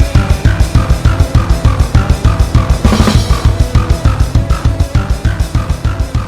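Instrumental music with a fast, driving beat of about six to seven pulses a second and a repeating high blip over it.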